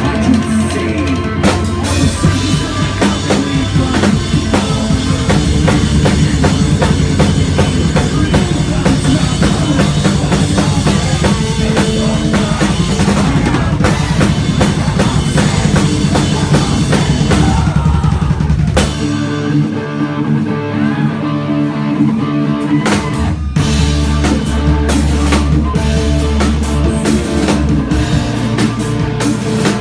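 Post-hardcore band playing live, with busy, loud drum-kit playing at the front of the mix over bass and guitars. About 19 seconds in, the bass and drums drop away for a few seconds, and the full band crashes back in about 23 seconds in.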